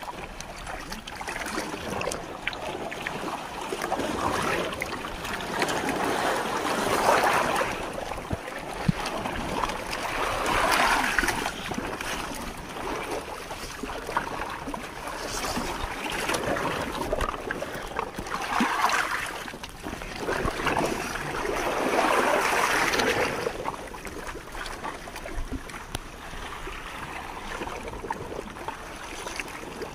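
Sea water splashing and sloshing around a fishing net being hauled up beside a bamboo raft, with no clear tone, swelling louder several times.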